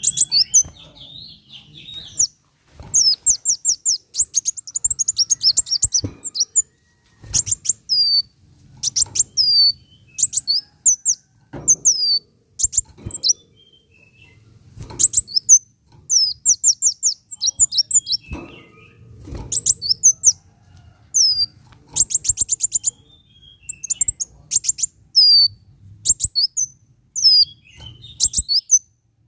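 Kolibri wulung sunbird singing: rapid, very high-pitched trills and sharp down-slurred notes in short repeated phrases, with brief pauses between them.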